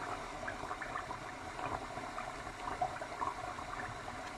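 Marinated pork loin frying in melted Iberian lard. The fat bubbles and crackles steadily with many small pops.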